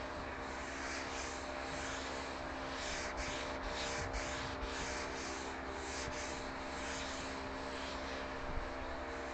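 A hand-held pad rubbed back and forth over the end grain of a wooden cutting board, a scratchy hiss in quick strokes about twice a second, over a steady low hum.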